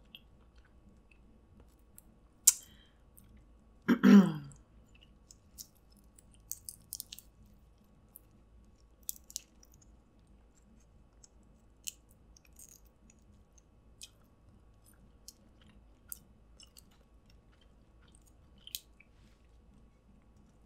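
Close-up eating sounds: scattered small clicks and crackles as cooked snow crab shell is picked apart by hand, with quiet chewing. One sharper crack comes about two and a half seconds in, and a brief hum about four seconds in.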